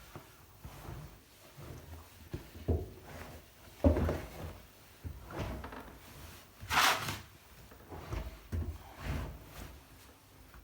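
Handling sounds at the opened door of an Arçelik 3650 SJ front-loading washing machine after the quilt wash: a series of separate knocks and clunks, with a louder rustling rush about seven seconds in.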